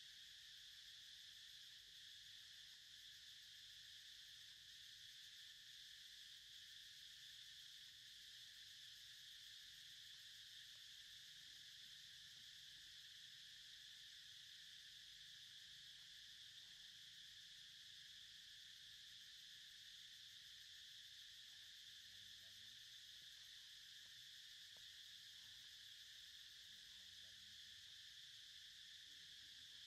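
Faint, steady high-pitched insect chorus.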